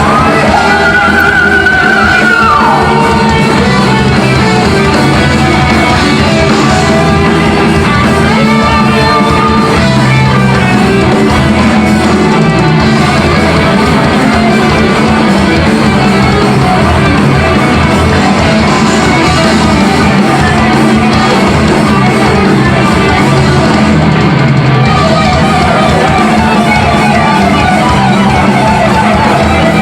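Heavy metal band playing live and loud: distorted guitar, bass and drums with singing, a guitar or voice gliding in pitch in the first few seconds.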